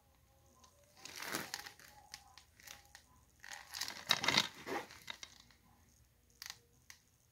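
Plastic shrink-wrap on a DVD case crinkling as the case is handled and turned over, in two bursts about a second in and again about three and a half seconds in, followed by a short sharp click near the end.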